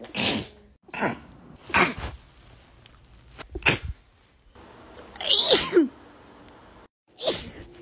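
A run of about six sudden, loud human sneezes, one after another. The one a little past the middle is longer, with a voiced cry that falls in pitch.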